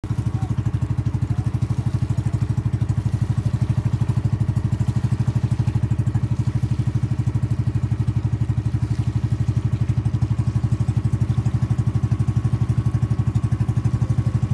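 Small motorboat's engine running steadily while underway, a low, fast, even chug that holds the same pitch throughout.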